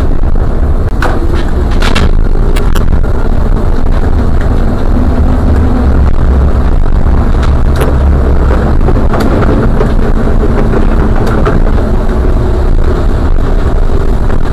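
Cab noise of a trolleybus on the move: a steady low road and tyre rumble with a faint hum underneath, and a few sharp clicks in the first couple of seconds.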